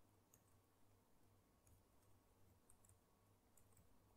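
Near silence, with a few faint, sharp laptop keyboard keystrokes and a low steady hum.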